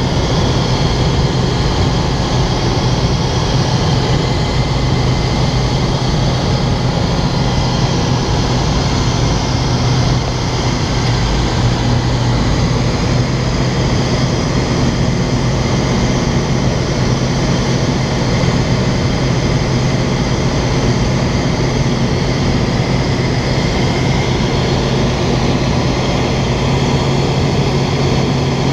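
Rotax 912 flat-four engine and propeller of a Jodel D-11 light aircraft running steadily in flight, heard from inside the cockpit as an even drone with a strong low hum.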